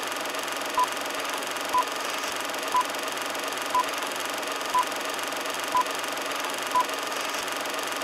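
Old-film countdown leader sound effect: a film projector's steady clatter and hiss, with a short beep once a second, seven beeps in all.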